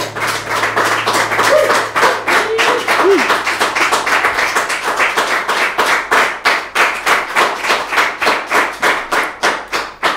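Small audience applauding right after a song ends, dense clapping at first that thins toward the end into fewer, more distinct claps.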